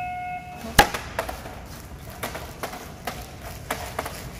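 A steady high tone stops within the first second. Then comes one loud sharp click, followed by a string of irregular lighter clicks and taps.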